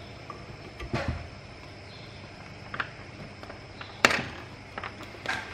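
A few short knocks and clicks from test probes and a multimeter being handled on a wooden workbench; the sharpest knock comes about four seconds in.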